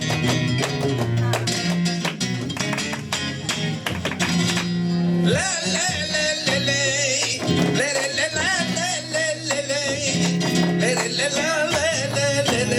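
Live flamenco tangos: flamenco guitar playing with dense, sharp percussive strikes. A male cantaor starts singing a wavering, ornamented line about five seconds in.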